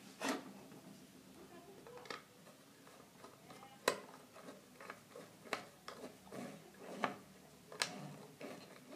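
Faint, irregular clicks, taps and light rustling of hands working electrical cables into a fuse board's terminals and tightening the terminal screws.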